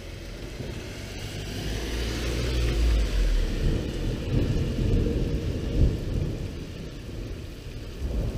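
Rolling thunder: a long, deep rumble that builds from about a second in and rolls on in waves, with rain falling.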